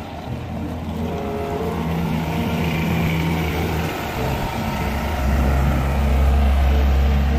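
Mustang 608 compact wheel loader's diesel engine running as the machine moves on gravel. It is a steady low hum that gets louder about five seconds in.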